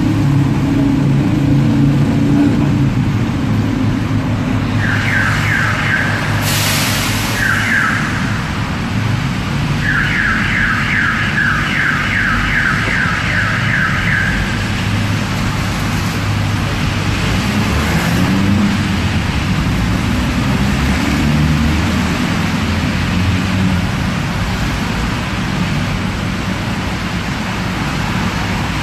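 Engine and road rumble inside a car in slow traffic, with runs of rapid electronic siren chirps, a short burst about five seconds in and a longer one from about ten to fourteen seconds. A brief hiss comes between the two bursts.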